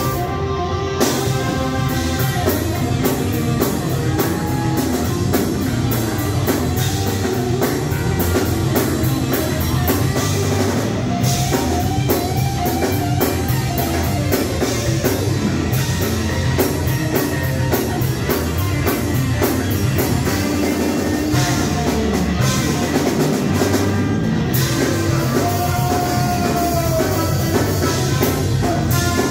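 Live band playing a brisk, steady groove with trombones and saxophone over electric guitars, bass and a drum kit, the cymbals keeping a steady beat; a few held horn or guitar notes stand out.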